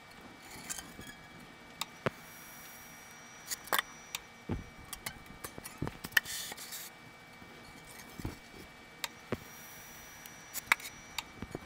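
Foam blocks being slid, pushed against a fence and set down on a foam-cutting board, sped up: scattered light clicks and knocks with a few short rubbing swishes, under a faint steady high whine.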